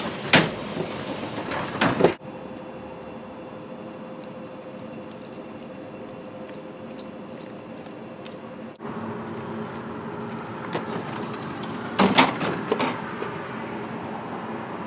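Tram sounds: clicking and rattling for about two seconds, then a steady electric hum, and clatter with a few knocks about twelve seconds in. The sound changes abruptly twice.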